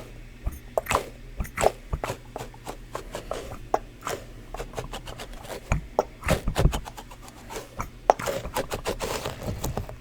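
Small plastic fidget toys being handled and played with close to the microphone: a quick, irregular run of sharp clicks and taps, several a second, over a faint steady hum.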